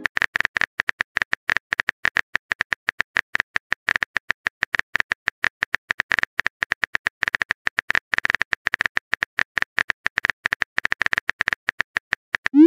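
Simulated phone keyboard typing sound from a texting-story app: a fast, irregular stream of short clicks as a message is typed out letter by letter. Right at the end, a rising whoosh of the message being sent begins.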